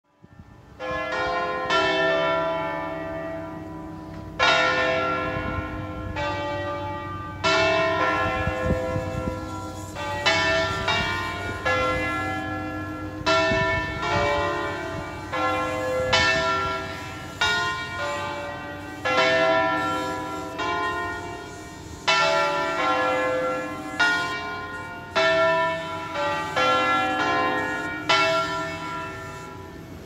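Church bells ringing in a bell tower: strokes every one to three seconds from about a second in, each ringing on and overlapping the next.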